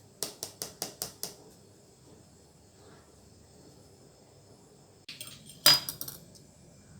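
A kitchen utensil tapping six times in quick succession against dishware, about five taps a second, then a short clatter and one loud clink with a few quick rebounds, like a utensil set down hard on a dish.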